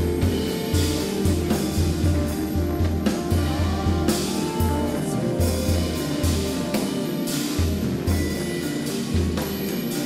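Live Korean traditional music and jazz fusion: electric guitar playing over drums and cymbals, with a deep low pulse about once or twice a second.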